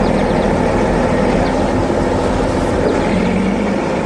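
Cement mixer truck's engine running steadily as it drives in, a continuous low drone.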